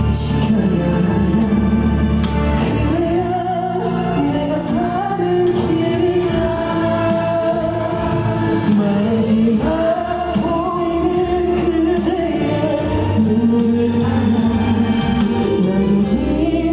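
A male singer performing a slow ballad-style trot song over instrumental accompaniment, holding long, gliding notes.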